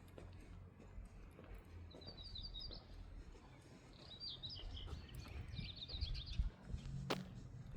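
A small songbird singing three short runs of quick, rapidly repeated high chirps, over a low, steady town rumble. A single sharp click sounds shortly before the end.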